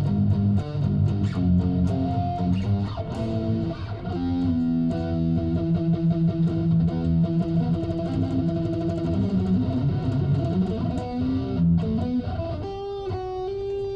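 Fender Thinline Telecaster electric guitar being played, a run of chords and picked notes. Near the end it thins out to a few higher single notes and one held note.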